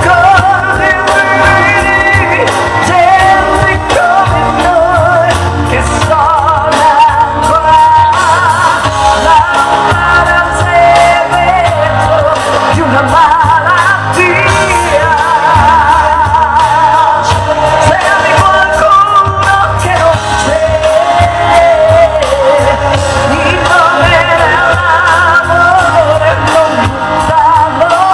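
A woman singing an Italian pop song live into a handheld microphone over loud amplified backing music with a strong bass line, her long held notes carrying a wide vibrato.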